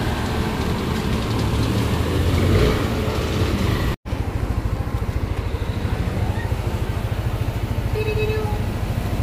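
Motorcycle engine idling steadily. The sound cuts out for an instant about four seconds in.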